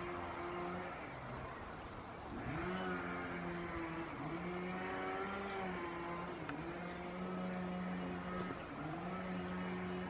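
An engine running with a steady hum that dips in pitch and climbs back several times, around two, four, six and a half and nine seconds in. There is one sharp click about six and a half seconds in.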